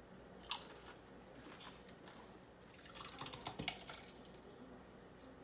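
Faint crisp clicks and crackles of tortilla chips being bitten and scooped through salsa in a glass bowl: one sharp snap about half a second in, then a short cluster of crunchy crackles about three seconds in.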